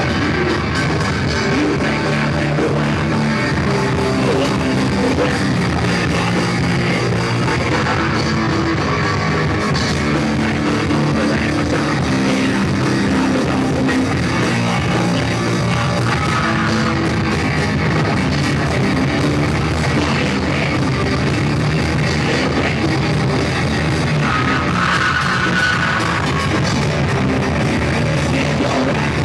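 Rock band playing live, with electric guitar and drum kit, in a muddy, poorly recorded mix.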